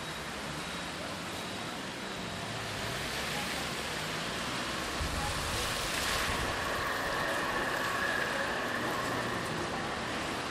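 Steady rushing noise of a moving road vehicle, swelling slightly around the middle, with a faint thin high tone in the second half.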